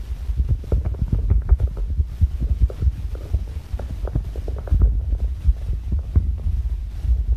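Irregular low thumping and rubbing with many small clicks, from hands working a ball of puri dough: pressing it flat between the palms and dipping it in dry flour, close to the microphone.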